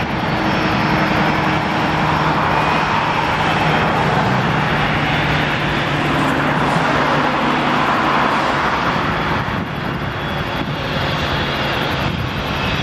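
Jet airliner engines running at low power, a loud, steady whine and rush with a low hum underneath, easing slightly about ten seconds in.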